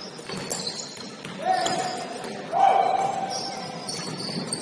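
Basketball game sounds echoing in a gym: a ball bouncing on the court and players shouting out twice in the middle, the second shout louder.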